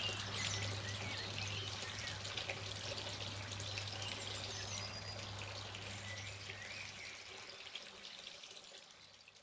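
Water dripping and trickling around a garden pond after a rainstorm, with birds chirping, over a low steady hum. The whole sound fades away near the end.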